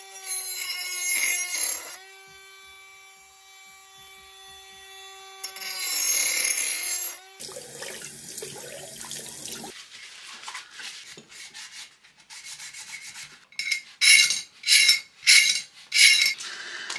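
Cordless Dremel-type rotary tool grinding the slot of a steel airsoft cylinder to widen it: a harsh grinding over the motor's whine, easing to the motor running freely for a few seconds, then grinding again. About seven seconds in it gives way to running tap water, and near the end come several sharp knocks and clicks of the metal cylinder being handled.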